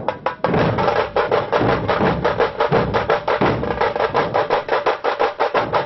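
Dhol-tasha ensemble playing: many large dhol barrel drums beaten with sticks in unison, with fast tasha strokes on top, about six strokes a second. The full deep dhol beat comes in about half a second in, after lighter strokes.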